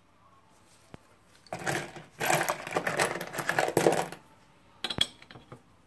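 Metal sockets and bearings clinking and rattling in a plastic parts tub as a hand rummages through it: a dense clatter from about a second and a half in until about four seconds, then a single sharp click about five seconds in.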